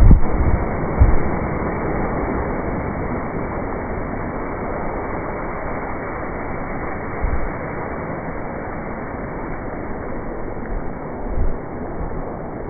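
Steady hiss of heavy rain, with wind gusts thumping on the microphone near the start, about seven seconds in and again near the end.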